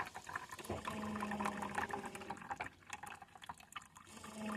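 Coffee machine brewing: its pump hums while liquid pours into a cup. The hum stops for a couple of seconds midway and starts again near the end.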